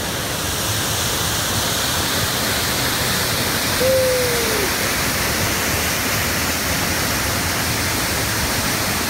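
Waterfall pouring into a plunge pool: a steady rush of falling water. A single short falling tone sounds over it about four seconds in.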